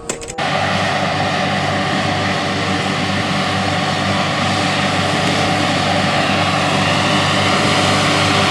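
A few clicks, then about half a second in a loud, steady engine drone starts abruptly, like a propeller aircraft's engine.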